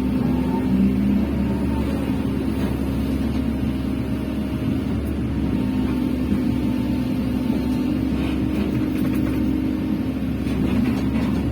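Excavator's diesel engine running steadily with a constant-pitch hum, with a few faint rattles near the end.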